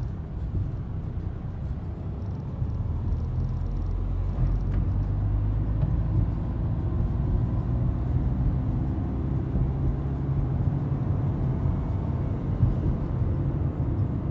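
Engine and road rumble of a manual-transmission Renault driving at moderate speed, heard from inside the cabin. It grows a little louder a couple of seconds in as the car is given a little gas.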